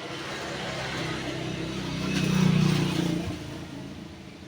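A motor vehicle passing by, its engine note swelling to a peak about halfway through and then fading away.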